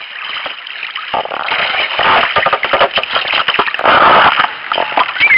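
Water rushing and splashing around a sea kayak, picked up by a camera mounted low on its deck, with a rough crackle throughout. It grows steadily louder.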